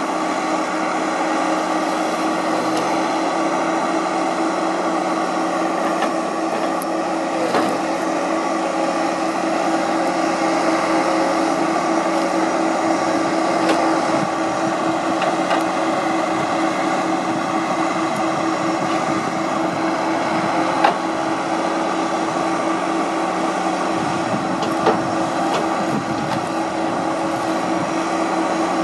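Timberpro TF840B forwarder's diesel engine and hydraulics running steadily under load with a constant whine while its crane grapple works logs. A few sharp knocks of logs, two of them in the last third.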